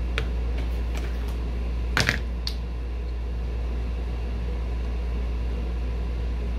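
Steady low electrical or mechanical hum, with a few light clicks and knocks from craft supplies being handled, the loudest about two seconds in.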